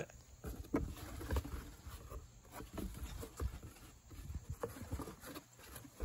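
Faint scattered clicks and rustles of a cardboard box's flaps being handled and pulled open one-handed, over a low rumble of handling noise.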